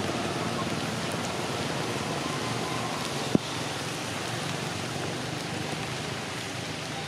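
Steady hiss of falling rain, with one sharp click about halfway through.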